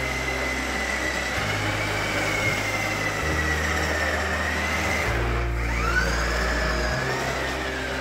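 Remote-control toy car's electric motor whining at a high pitch that wavers with its speed, dropping away and climbing back up about five and a half seconds in, over background music with a stepping bass line.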